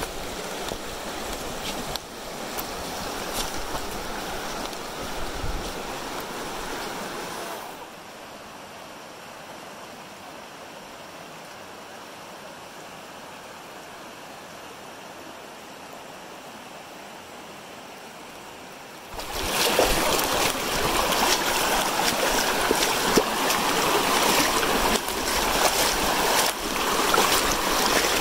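North Fork of the Virgin River flowing over rocks in a shallow stream. The level drops abruptly about eight seconds in and jumps up, louder than before, about nineteen seconds in.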